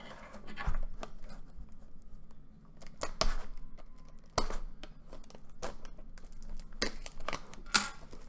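Cellophane shrink wrap being picked at and torn off a trading card box: irregular crinkling and crackling, with a few sharper snaps as the plastic gives.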